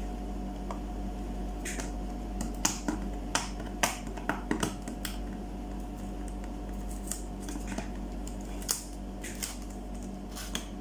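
Hands peeling a seal sticker off a cardboard box and handling the box: scattered sharp ticks and clicks, busiest in the first half, over a steady hum.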